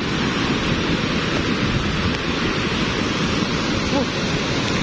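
Lahar (volcanic mudflow) from Mount Semeru rushing down the river channel in a new surge: a steady rush of churning, sediment-laden water.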